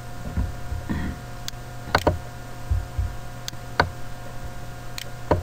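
Computer mouse clicking: a handful of short, sharp clicks spaced irregularly over several seconds, over a steady low electrical hum.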